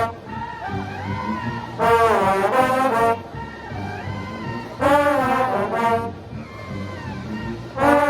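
A trombone section playing together in loud, bright brass chords, each blast lasting about a second, three times, with quieter held notes between them.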